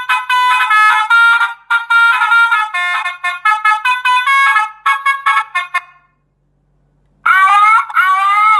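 Electronic three-sound reversing horn (80-watt) playing a melody of short beeping notes, which stops about six seconds in. After about a second of silence it starts another of its sounds: a siren-like wail that rises in pitch, twice.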